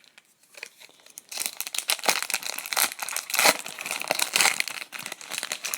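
A hockey card pack wrapper being torn open and crinkled by hand. A few small clicks come first, then dense, irregular crackling starts about a second in and carries on.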